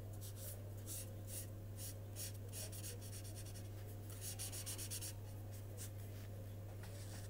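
Marker tip scratching across paper in quick repeated strokes while colouring in a drawing, with a denser flurry of strokes about four to five seconds in.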